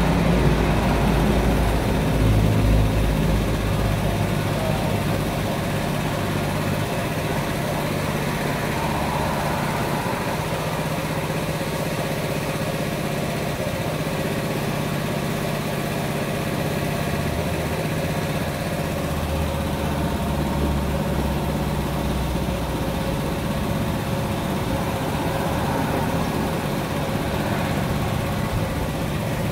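An engine running steadily at idle, a low hum that keeps an even level with little change.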